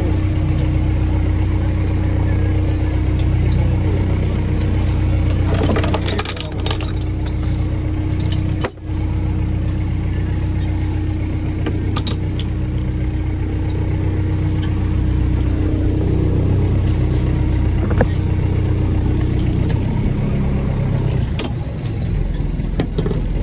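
Fishing boat's engine running steadily, a deep even drone, with a few knocks and clinks of gear handled on board.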